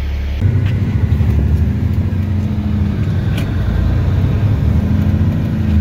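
Engine and road noise inside the cab of a vehicle driving at highway speed: a steady low rumble that starts suddenly about half a second in, after a brief steady low hum.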